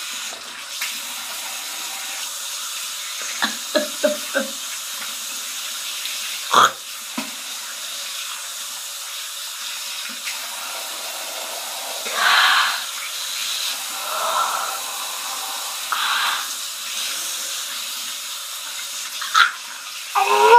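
Bathroom tap running steadily into a sink while foam is rinsed off a face, with a few louder splashes. Several light knocks come about four seconds in and a sharp click a little later.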